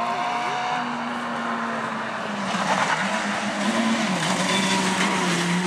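Peugeot 207 rally car's engine running hard through a dirt corner, its note stepping down and back up with the throttle. The rush of tyres on loose dirt grows louder from about two seconds in as the car comes closer.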